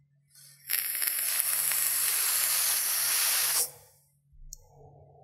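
A steady airy hiss lasting about three seconds, starting under a second in and cutting off sharply.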